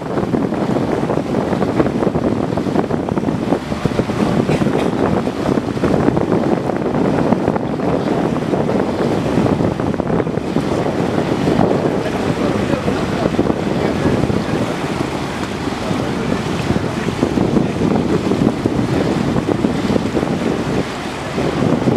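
Steady rushing of wind buffeting the microphone, mixed with water washing along the hull of a small boat under way.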